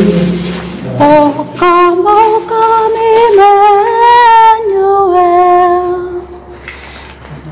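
A woman's singing voice: a slow melody of held notes with vibrato, starting about a second in and fading near the end.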